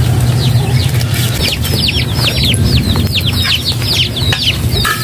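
Chicks peeping, a fast run of short, high, falling chirps several times a second, over a steady low rumble.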